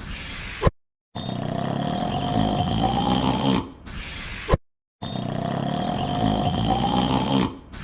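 A man's long, low yawn played on a loop: each yawn lasts about two and a half seconds and trails off, then a short sharp click and half a second of silence come before it starts again. Two full yawns are heard.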